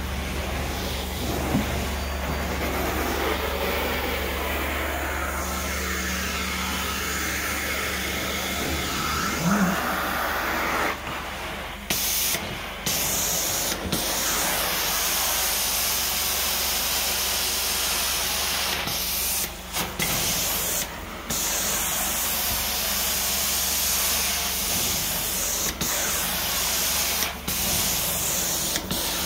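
Hot-water carpet extraction wand spraying and sucking water back up as it is pulled across carpet: a steady hissing rush of spray and vacuum airflow over a low machine hum. The hiss dips out briefly a few times.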